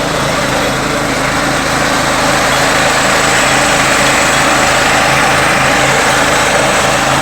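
Small engine of a walk-behind crop reaper running steadily at working speed.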